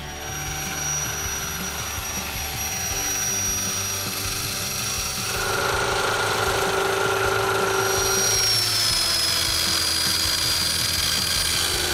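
An engine running steadily with a high whine. Its tone changes about five seconds in, and the whine slides gradually lower from about eight seconds.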